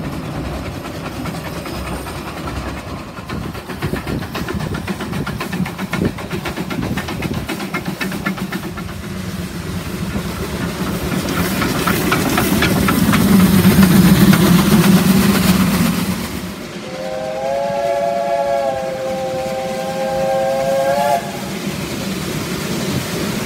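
Narrow-gauge steam locomotive of the Welsh Highland Railway running past with a regular mechanical beat, loudest as it passes close about two-thirds of the way in. Near the end a steam whistle sounds for about four seconds and cuts off sharply.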